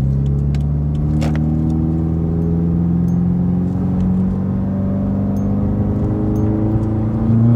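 2017 Subaru WRX's turbocharged flat-four, fitted with a Grimmspeed catted J-pipe and Carven cat-back exhaust, running under acceleration with its pitch rising steadily. It gets louder near the end.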